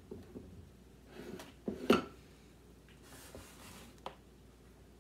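A few light knocks and clinks of kitchen dishware being handled, the sharpest about two seconds in and one more small knock about four seconds in, in an otherwise quiet kitchen.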